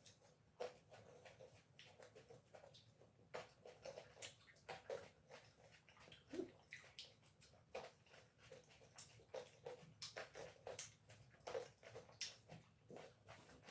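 Faint, wet chewing and lip-smacking of people eating grapes fast, heard as scattered irregular clicks and smacks.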